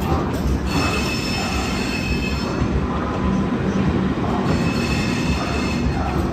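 LHB passenger coaches of a departing express train rolling slowly past, with a steady rumble of wheels on rail. High-pitched wheel squeal comes in twice: for about two seconds starting a second in, and again for a second or so near the end.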